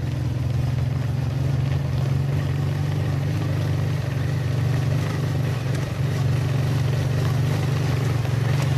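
An engine running steadily at a constant speed, a low, even drone with no revving.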